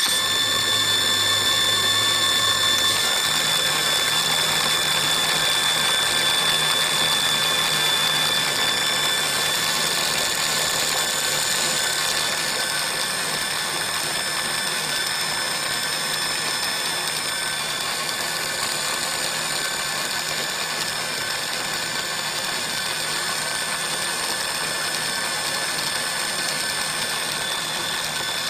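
Small electric motor and gearing of a scale-model Volvo L220E wheel loader running steadily, a high whine over an even hiss. A faint low hum steps up in pitch about three seconds in.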